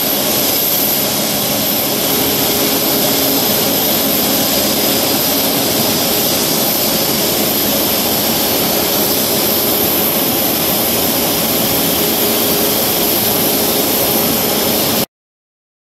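Steady jet turbine whine from a parked Boeing 737 MAX 8, an even rushing hiss with a high whine on top and no change in pitch. It cuts off suddenly about 15 seconds in.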